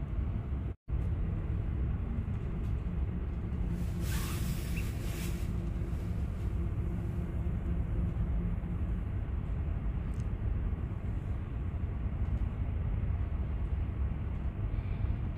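Passenger train running, a steady low rumble heard from inside the carriage, with a faint hum for a few seconds and a brief hiss about four seconds in.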